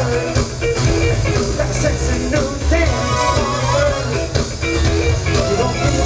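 Live funk band playing loud, with drums, electric guitar and a strong bass line.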